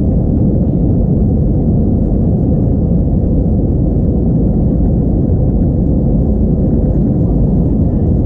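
Cabin noise inside an Airbus A321-231 climbing out after takeoff: the steady, loud drone of its IAE V2500 turbofan engines mixed with rushing airflow over the fuselage.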